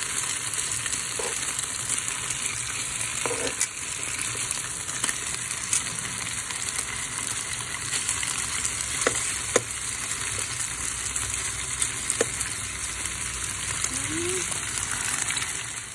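Pork pieces and beef steaks frying in oil in a nonstick pan: a steady sizzling hiss, with a few sharp clicks scattered through it.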